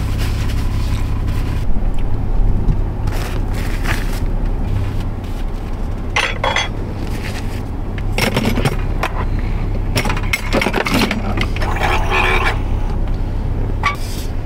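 Scraping and clattering of dishes and cookware being handled and a frying pan being wiped out, in short irregular bursts over a steady low hum.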